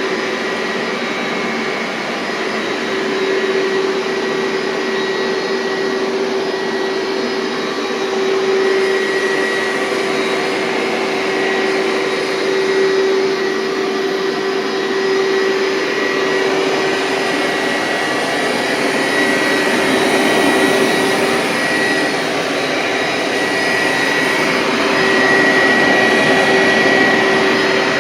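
Hoover SteamVac Widepath carpet cleaner running, its suction motor giving a steady airy rush with a low hum and a high whine, swelling a little in loudness now and then.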